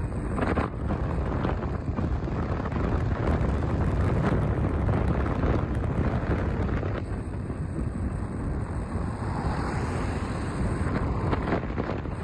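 Wind rushing over the microphone of a rider on a moving RKS Newlight 125 Pro scooter, a steady rush with road and traffic noise underneath.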